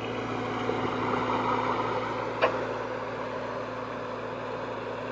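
Wacker Neuson 803 mini excavator's diesel engine running steadily under hydraulic load as the arm is worked, swelling slightly about a second in. A single sharp knock comes about halfway through.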